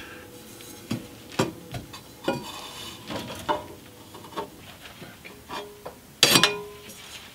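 Metal exhaust pipe sections being handled and fitted up under a car: a string of light metallic knocks, clinks and scrapes, with a louder ringing clank about six seconds in.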